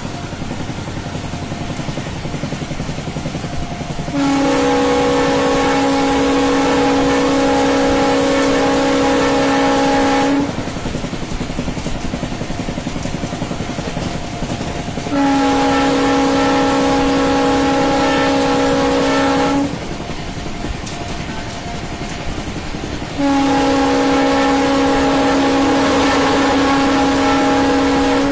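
Horn of a WDP-4B diesel locomotive sounding three long blasts, each about five to six seconds, with the last still going at the end. Between the blasts there is the steady running noise of the train.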